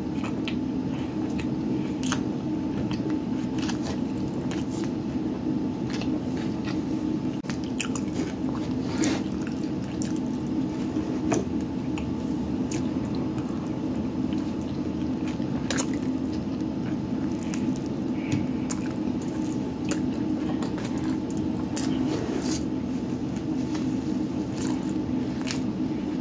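A person biting into and chewing soft falafel tacos in flour tortillas, with wet, squishy mouth sounds and scattered small clicks. A steady low hum runs underneath.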